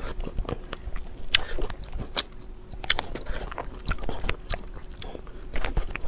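Close-miked ASMR chewing and biting of a mouthful of food, a dense run of short, irregular crunchy and wet clicks.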